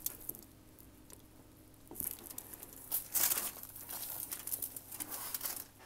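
Hands heaping and pressing loose cornstarch into a mound on aluminium foil: soft crunching of the powder and crinkling of the foil, in irregular bursts starting about two seconds in.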